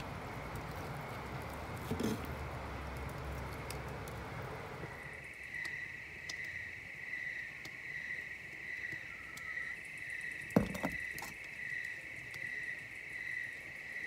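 Crickets chirping at night, a steady high pulsing trill that starts about five seconds in, after an even hiss. There is one sharp knock about ten and a half seconds in.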